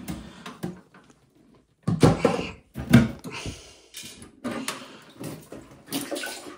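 Irregular knocks and clunks from work on a toilet cistern as its last fixing screw is undone and the parts are freed, with two loud thuds about two and three seconds in.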